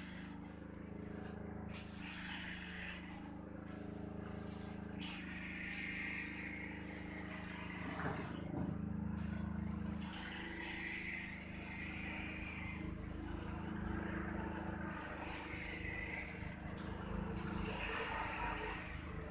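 Soft swishes of a grass broom pushed over a smooth floor, coming in short strokes every few seconds, over a steady low mechanical hum.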